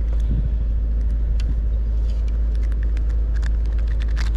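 Wind buffeting the microphone: a steady low rumble, with scattered small ticks and clicks over it.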